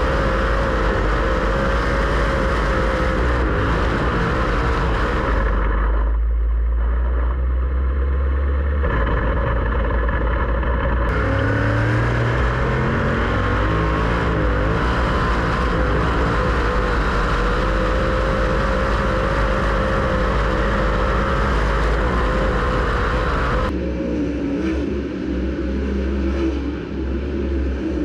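Sprint car engines running hard on track, their pitch wavering up and down, in several clips cut together, with abrupt changes in the sound about 6, 9, 11 and 24 seconds in.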